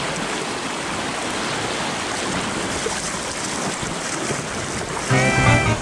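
Steady rush of river water churning through a riffle around a packraft. Music comes in about five seconds in, louder than the water.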